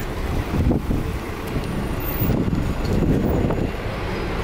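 City bus pulling into the stop and rolling past close by, a steady low rumble of engine and tyres, with wind buffeting the microphone.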